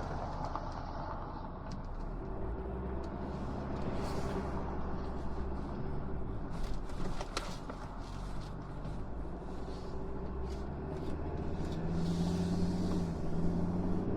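Ford Ranger driving along, its engine running steadily under road and tyre noise, with a few sharp knocks and rattles about halfway through.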